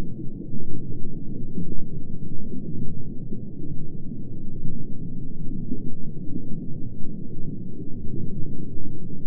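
Underwater ambience soundtrack: a steady, muffled low rumble that swells and ebbs, with nothing in the higher range.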